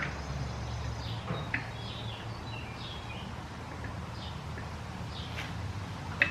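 Birds chirping intermittently over a low steady hum, with a few light metallic clicks from hand work at the front of an engine.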